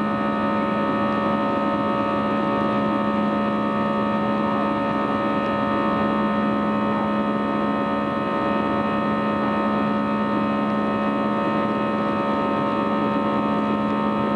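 Airbus A320's turbofan engines running during the climb after takeoff, heard inside the cabin near the wing: a steady drone with a strong low hum and several steady higher tones.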